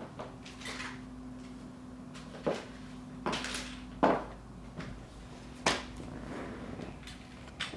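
A series of sharp knocks and thuds, about six spread over several seconds, from someone moving about a small room and handling things, over a steady low hum.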